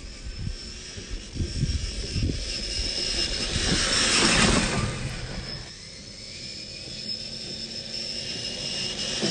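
Axial SCX10 III RC crawler, with a Hobbywing AXE 550 brushless motor, driving through tall grass, its tyres and body brushing through the grass. The rustling swells as it passes close about four seconds in, then fades, with a few low thumps in the first two seconds.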